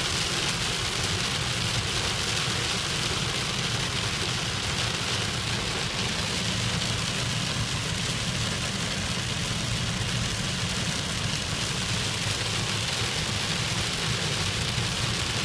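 Rain falling on a car's windshield and roof, heard from inside the cabin as a steady hiss over a steady low rumble of the car on the road.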